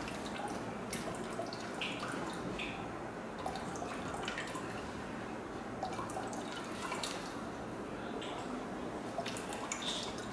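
Vinegar poured slowly from an upturned bottle into a Thermomix TM6's stainless steel mixing bowl, falling in small, irregular drips and splashes.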